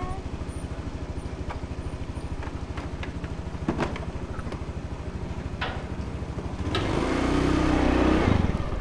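A Honda scooter's single-cylinder engine idles with a steady, rapid putter. There are a couple of light knocks partway through, and the sound grows louder near the end.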